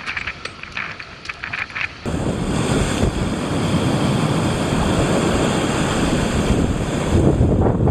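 Rough sea surf breaking and washing over a rocky shoreline, with wind on the microphone. It comes in loud about two seconds in, after a quieter stretch of short clicks.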